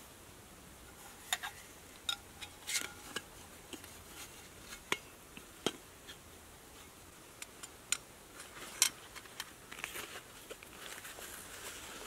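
Metal camping cook pot, mug and lid clinking and tapping together as they are nested and packed into a mesh stuff sack, with some rustling. The knocks are small and irregular, about a dozen, the loudest about nine seconds in.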